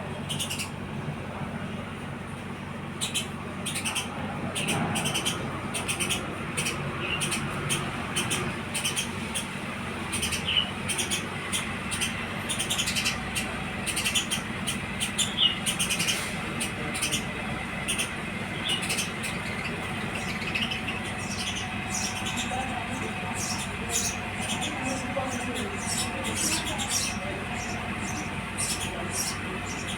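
House sparrows chirping: many short, high chirps in quick succession, over a steady low hum.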